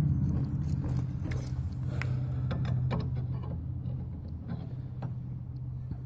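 Clicks and metallic rattling as tools are handled at an outdoor heat pump unit, over a steady low hum.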